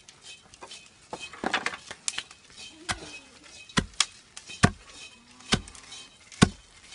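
Wooden pestle pounding fresh corn kernels in a large wooden mortar to flatten them into chura (beaten corn), in a series of dull knocks. A few light knocks come first, then steady strikes about once a second from about three seconds in.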